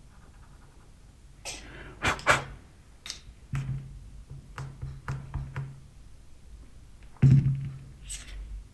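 Clicks and knocks of small hard objects being handled and set down, with a series of ticks in the middle and one loudest knock about seven seconds in.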